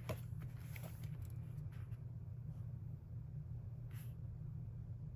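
Soft paper rustling and light clicks as sticker sheets in a sticker book are handled, a few in the first two seconds and one short rustle about four seconds in, over a steady low hum.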